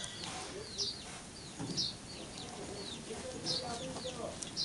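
Silver Appenzeller Spitzhauben chickens clucking, with short high chirps repeating a few times a second.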